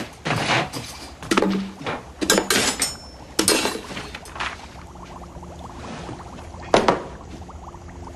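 A wooden crate and objects around it being handled: a run of knocks and light clinks over the first few seconds and one sharp knock near seven seconds in. A low steady hum sits underneath from about five seconds in.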